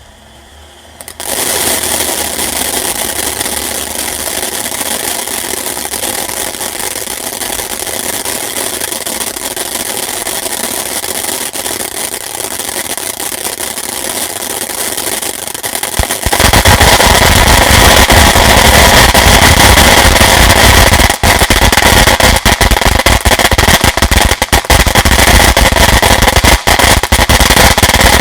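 A ground firework fountain catches about a second in and sprays with a steady, loud hiss. About 16 s in it grows louder and deeper, with scattered crackling pops through the rest.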